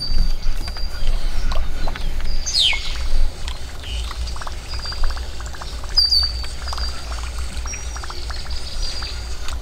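Songbirds chirping: short high calls, and one sharp downward-sweeping call about two and a half seconds in, over a steady low rumble. A run of fast light ticks comes through in the middle.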